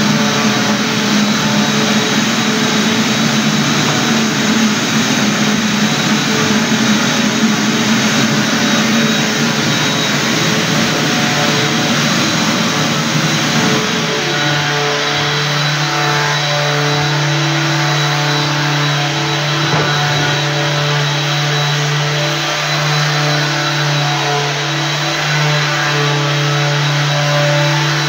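Floor-care machine running steadily with a motor drone and a thin high whine; about halfway through its hum drops to a lower pitch and stays there.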